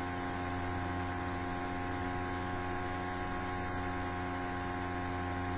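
Steady electrical mains hum: a constant buzz of several fixed tones over a low hiss, unchanging throughout.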